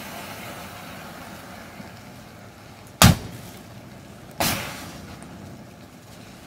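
Disposable butane lighters bursting in a fire: two sharp bangs, the louder about three seconds in and another a second and a half later, each followed by a short whoosh of flame, over the steady rush of the burning pile.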